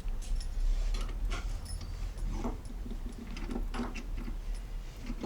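Scattered light metal clicks, taps and scrapes from a foil lockpick and a door lock cylinder being handled.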